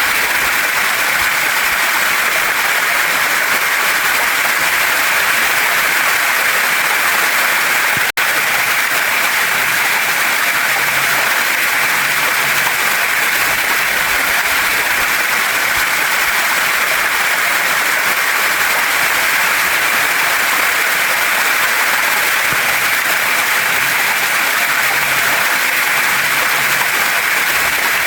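Steady rushing of a waterfall and stream pouring over rocks, an even, loud water noise with one momentary break about eight seconds in.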